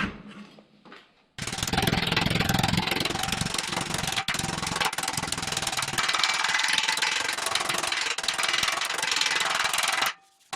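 A power tool running at full speed on sheet metal, a dense rattling noise that starts abruptly about a second in and stops abruptly near the end.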